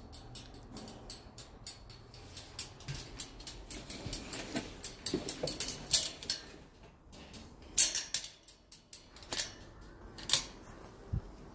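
Handling noise: light clicks and rustles, scattered unevenly, with a few sharper ones about six, eight and ten seconds in. They come from a phone being moved about close against the bars of a wire pet cage.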